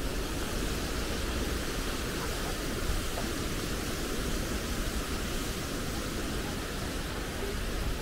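Steady rushing noise spread evenly from low to high pitches, with no separate events.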